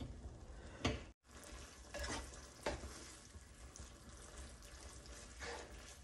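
Chili-soy manchurian sauce with peppers and onions sizzling faintly in a nonstick wok while a spatula stirs it, with a few soft spatula knocks against the pan.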